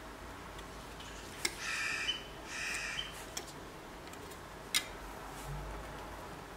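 Small neodymium disc magnets clicking sharply a few times as they are set onto a balloon diaphragm stretched over a tin can, with two short spells of rubbing and handling noise from the can and balloon.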